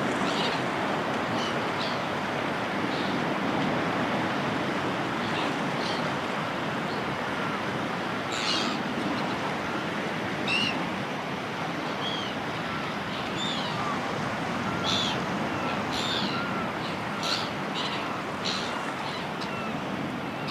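Steady wash of sea surf with seagulls calling over it: short, high calls, scattered at first and coming thick and fast in the second half.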